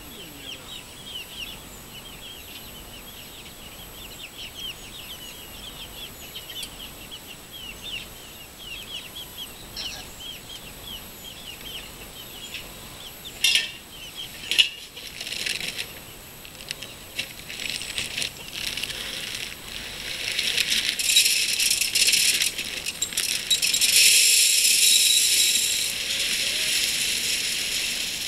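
Chicken feed poured from a bag into a galvanized metal feeder: a steady rattling hiss of grain on metal through the second half, loudest near the end. Before it, two sharp metallic clanks as the feeder's lid is handled, and in the first half rapid small bird chirps.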